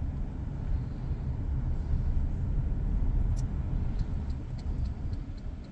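Steady low road rumble of a car driving, heard from inside the cabin.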